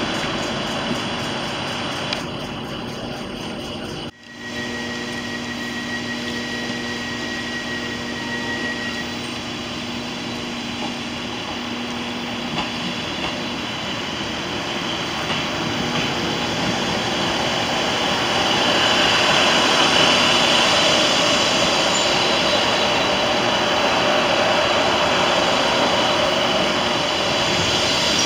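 Diesel multiple-unit trains at a station platform: after an edit about four seconds in, a steady engine hum with a high whine, then a train's running noise growing louder from about halfway through as a unit moves past close by.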